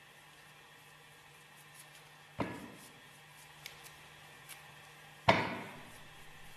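Two light mallet blows on a Westfalia separator's closing chamber bottom, driving it down into the annular piston: each a sharp knock with a brief metallic ring, about three seconds apart, the second louder.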